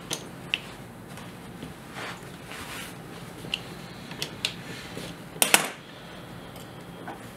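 Light metallic clicks and taps of a T-handle hex key and small stainless-steel fixture parts being worked by hand, a bolt being snugged. A sharper double click comes about two-thirds of the way through.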